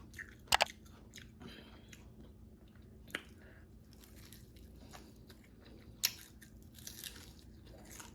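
Person biting into and chewing crispy, hard-fried chicken wings: a few sharp crunches, about half a second in, around three seconds and around six seconds, with softer chewing and crackling between them.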